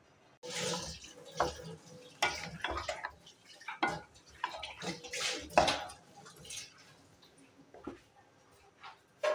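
Spatula stirring chicken pieces through a watery tomato gravy in an aluminium pot: irregular wet sloshing and scraping strokes against the pan for the first six seconds or so, then two single strokes near the end.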